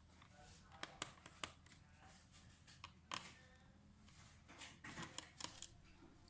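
Scattered sharp clicks and taps of small hard parts being handled while a laptop is worked on for a RAM upgrade. A quick cluster of clicks comes about five seconds in.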